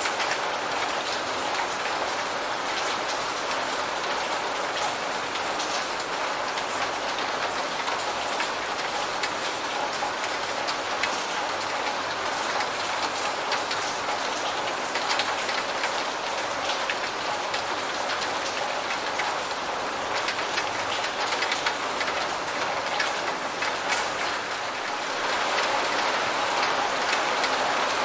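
Steady rain: a dense, even hiss of falling drops with many small individual drop ticks. About 25 seconds in it grows slightly louder.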